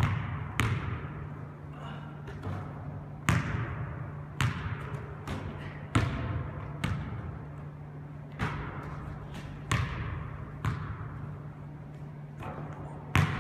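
A basketball bouncing on a hardwood gym floor: sharp, irregular bounces about once a second, each ringing on in the hall's echo. A steady low hum runs underneath.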